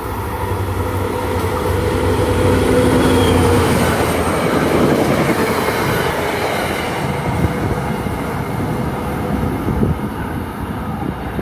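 NJ Transit EMD GP40PH-2 diesel locomotive and Bombardier Comet III coaches passing at speed. A steady engine hum sits over the rail noise as the locomotive goes by in the first few seconds. Then come the wheel and rail rumble of the passing coaches, easing as the train moves away.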